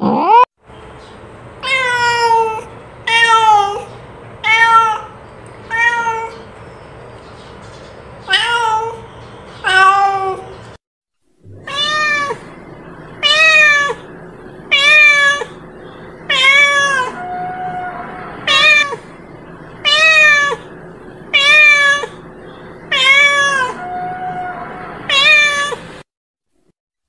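Domestic cat meowing over and over, short meows each falling in pitch, repeated every second or so, with a brief break near the middle.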